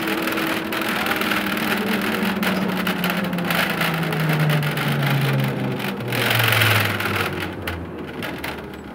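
Ikarus 280 articulated bus's diesel engine, heard from inside the bus, its note falling steadily in pitch as the bus slows, over road and tyre noise; the sound drops away in the last couple of seconds.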